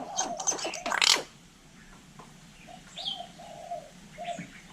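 Hill myna calling: a burst of loud, harsh squawks in the first second, then a few short, low whistled notes.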